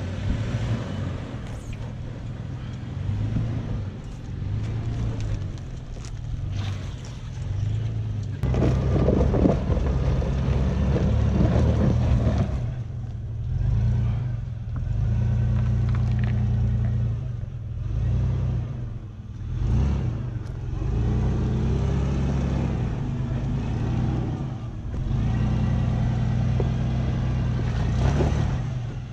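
Off-road SUV engine running at low crawling speed over trail rocks, rising and falling with the throttle, with a louder stretch about a third of the way in.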